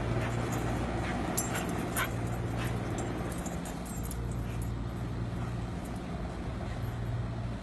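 Dog giving a few short, sharp sounds about one and a half to two and a half seconds in, over a steady low hum.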